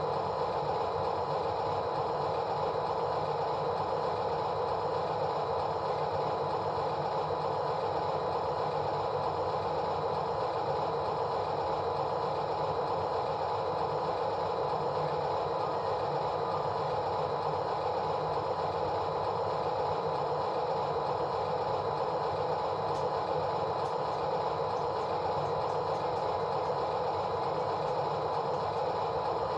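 A machine running steadily, an even mechanical hum that holds at one level without a break.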